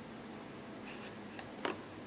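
A few faint ticks and one sharper click near the end over a steady low hiss.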